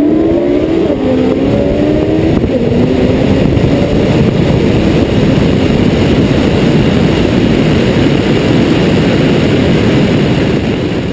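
Car engine accelerating hard at full throttle: its pitch climbs over the first two seconds or so, then it settles into a loud, steady roar mixed with rushing wind as the car runs flat out.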